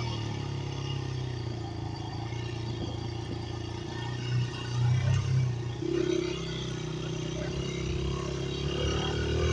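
Dirt bike engine running as the bike rides across grass, picking up briefly about five seconds in.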